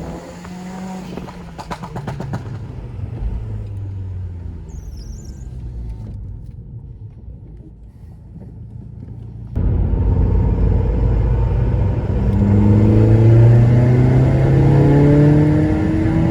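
Seat Leon 1.8T's turbocharged four-cylinder engine running at low revs, then suddenly put under hard throttle about ten seconds in, its pitch rising as it accelerates.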